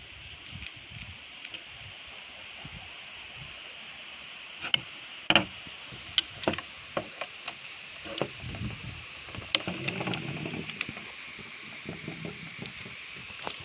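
Handling noise: scattered sharp plastic clicks and knocks as a 3D-printed rail riser is turned in gloved hands and set against the top rail of an airsoft rifle replica, loudest about a third of the way in, with a stretch of rubbing and rustling partway through.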